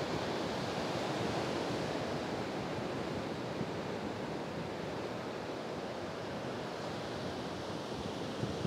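Ocean surf breaking and foam washing up a sand beach: a steady rush of water.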